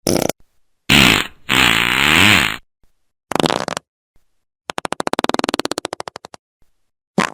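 A series of about six fart sounds with gaps between them. Most are short; one, starting about one and a half seconds in, lasts about a second and its pitch wobbles down and back up. Later a fluttering one of many quick pulses runs for almost two seconds.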